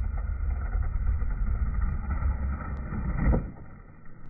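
Slowed-down skateboard audio: a deep, muffled rumble of the wheels rolling on asphalt, with one heavier thud a little over three seconds in as the tail is popped. The sound fades away just after.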